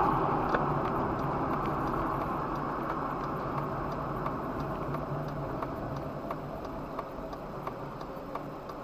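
Car driving along at road speed, heard from inside the cabin: steady tyre and engine noise that slowly dies down, with faint, fairly regular ticks running through it.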